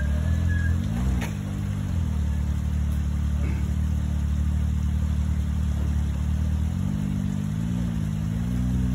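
Side-by-side UTV engine running under load as it crawls over rock ledges, its pitch rising and falling with the throttle about a second in and again near the end.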